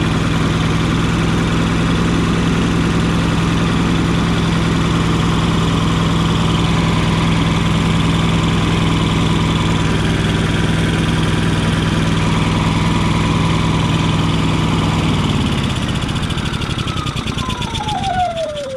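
Yamaha EF4500iSE inverter generator's engine running steadily, then shutting off about fifteen seconds in and winding down with a falling whine. The engine runs but the generator gives no power; the owner judges its inverter board to be shot.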